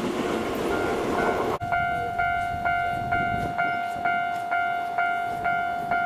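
An electric commuter train's running noise rushes past and then cuts off about a second and a half in. After that a Japanese railway level-crossing alarm rings: an even electronic ding about twice a second, signalling that a train is approaching.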